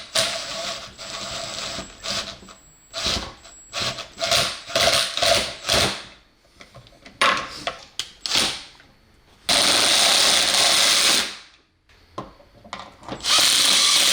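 Drill with a 7/16 socket on an extension driving 1/4-inch bolts down, run in many short pulses and then in two steadier runs, one of about two seconds and a shorter one near the end.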